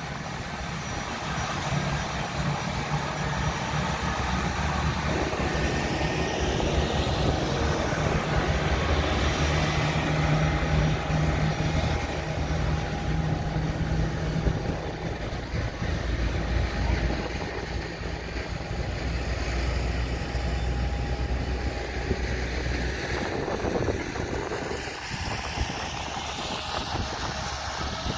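Jet airliner engines running at idle with a steady whine and rush, over the low hum of an aircraft pushback tug. The low hum drops away about three-quarters of the way through, and the jet noise carries on.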